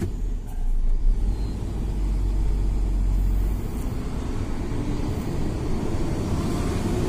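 A motor vehicle on the move: a steady low engine-and-road rumble, deepest and heaviest in the first half.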